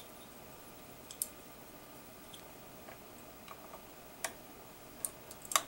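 Faint, scattered metallic clicks of an Allen wrench being fitted into and turned in the set screw on a CB antenna's tunable tip to loosen it. About five separate clicks, the loudest just before the end.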